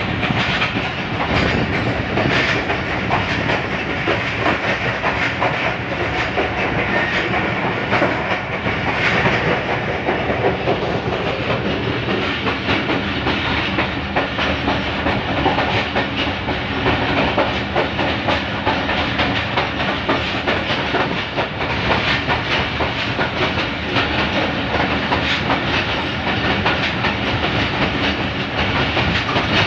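Diesel train running along the track, heard from inside the locomotive cab: a steady engine drone with wheels clacking over the rails.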